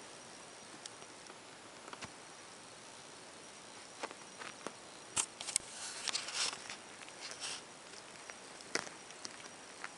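Scratchy rustling and soft clicks of a small kitten squirming on a blanket as it is petted and handled, over a steady low hiss. The rustling comes in a cluster from about four to eight seconds in, with a few more clicks near the end.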